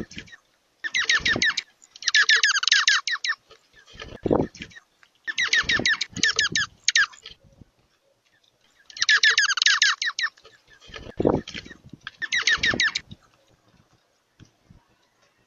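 Birds squabbling: about six bursts of rapid, high chattering chirps, each lasting up to a second, with a few low thumps between them.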